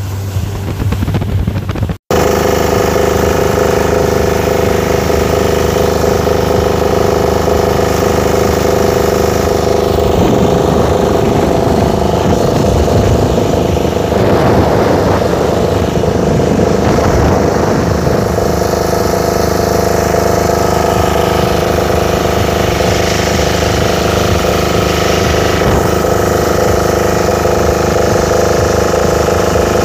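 Boat engines running steadily at cruising speed, a loud even drone, with water rushing past the hull, strongest midway. The sound cuts out for an instant about two seconds in.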